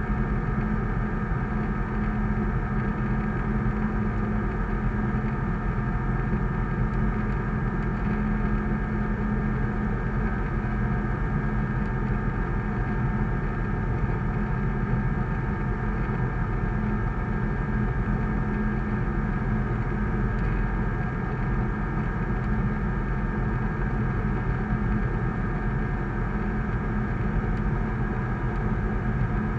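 Sling 2 light aircraft's Rotax flat-four engine and propeller running steadily in flight, heard inside the cockpit. It is an even drone with several steady tones and no change in pitch.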